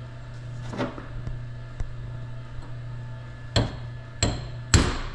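Three sharp hammer blows on a steel punch, the third the loudest and ringing, driving a needle post into the planetary gear cage of a torque hub final drive. A lighter knock comes about a second before them.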